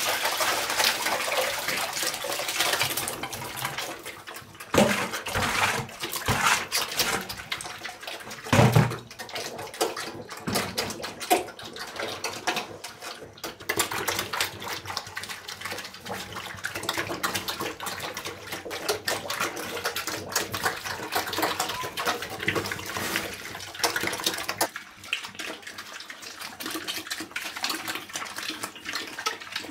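Wet chopped-greens mash poured from a plastic bucket into a rubber trough, loudest in the first few seconds, then several young pigs eating noisily from the wet feed, with wet splashing and chomping and a few louder knocks against the trough.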